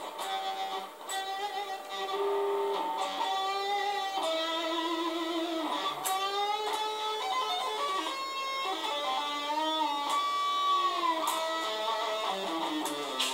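Guitar music with a lead electric guitar playing notes that bend and waver, sounding thin with no bass.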